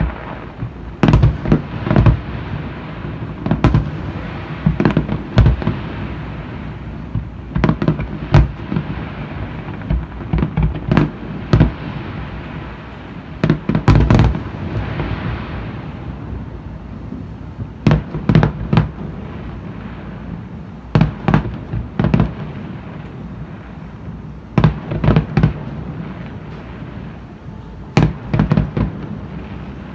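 Aerial firework shells bursting in a barrage: about two dozen sharp bangs coming in clusters of two or three every few seconds, with a low rumble running between them.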